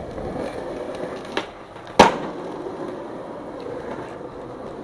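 Skateboard wheels rolling on asphalt, with a sharp wooden clack of the board about two seconds in and a lighter click just before it.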